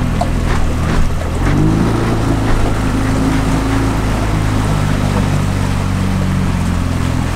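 Small boat's motor running under way, its pitch stepping up about a second and a half in and then holding steady, over a hiss of wind and water.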